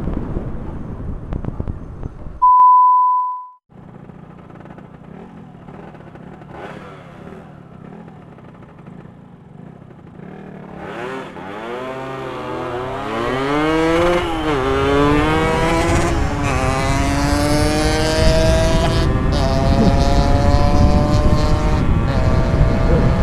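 Wind rush, then a loud, steady beep lasting about a second, about two and a half seconds in. From about eleven seconds a two-stroke motorcycle engine accelerates hard, getting louder, its pitch climbing, dropping at a gear change and climbing again.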